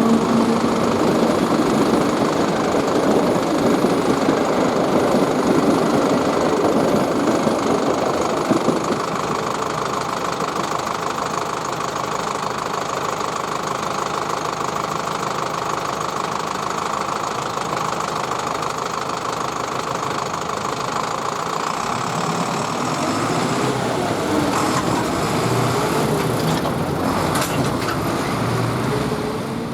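A train running over the level crossing: a loud, steady running noise, heaviest for the first nine seconds or so, then easing.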